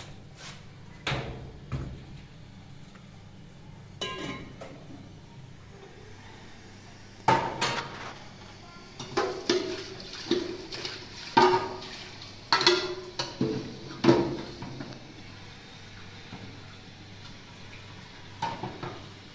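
Pots, dishes and utensils clattering during kitchen work. It is a series of knocks, some with a short ring after them, bunched most thickly between about 7 and 15 seconds in.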